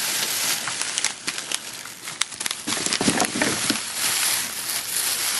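Plastic shopping bag rustling and crinkling as items are rummaged out of it, with many small crackles.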